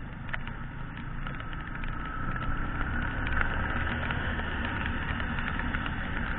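Riding a Yamaha motorcycle in heavy rain, heard from a helmet-mounted camera: a steady rush of wind and engine, dotted with many small ticks of raindrops hitting. It grows louder from about two seconds in as the bike speeds up.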